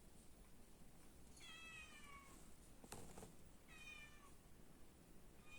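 Kitten meowing faintly: two high meows falling in pitch, about a second and a half and about four seconds in, with a third starting at the very end. A short click falls between the first two.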